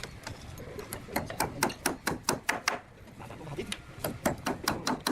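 Rapid hammer blows on wood, about five a second, in two runs with a short pause between them.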